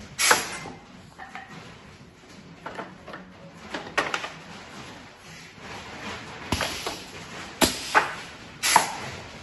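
Pneumatic clamps of a stretcher bar assembly machine firing and releasing with sharp clunks and short air hisses, among the knocks of wooden stretcher bars set against its aluminium frame. The loudest clunks come just after the start and three times in the last three seconds.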